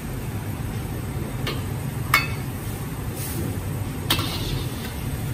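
Metal ladle and spatula clinking against a carbon-steel wok during stir-frying: three clinks, the loudest about two seconds in. A steady low rumble runs underneath.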